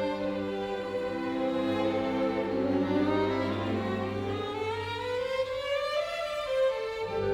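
Background music of bowed strings, led by violin over cello, with a melody that slides upward through the middle of the passage.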